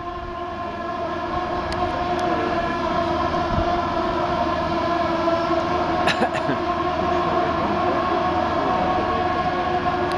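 Steel rolling bascule bridge mechanism screeching as the leaf moves: a steady, high squeal of several tones held together, growing louder over the first couple of seconds, with a single click about six seconds in. An onlooker takes it as a sign that the mechanism wants lubricating ("WD-40").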